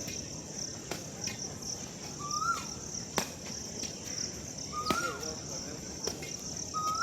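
Steady high-pitched chirring of crickets or similar insects, with a short call that rises and then drops sharply, repeated about every two and a half seconds, and a few sharp knocks.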